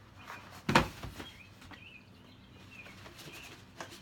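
A sharp knock about a second in, among lighter clicks and rustles from a sneaker box and shoes being handled, with a few faint bird chirps in the background.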